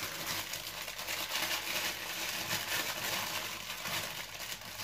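Quiet rustling with many small light clicks: hot chili pepper being handled and dropped into a plastic food-chopper bowl.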